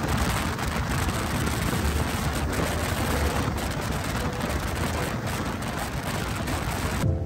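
Heavy wind rushing and buffeting over the microphone of a motorcycle at highway speed: a dense, steady roar with irregular crackles. It cuts off abruptly near the end.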